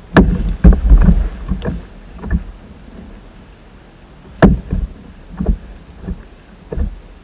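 Irregular knocks and thumps against a plastic kayak hull as the angler shifts while fighting a hooked bass, about a dozen in all, loudest in the first second and again about four and a half seconds in.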